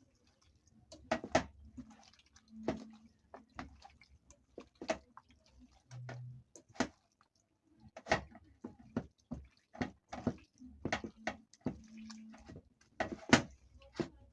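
Hands rubbing seasoning into raw chicken pieces: a string of irregular clicks and slaps, several a second.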